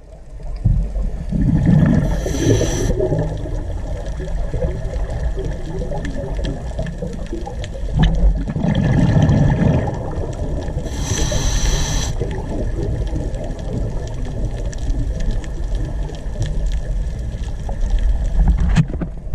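Underwater camera audio of a scuba diver breathing through a regulator: a steady low rumble of water and bubbles, with a hissing breath about two seconds in and again about eleven seconds in, each beside a burst of gurgling exhaled bubbles.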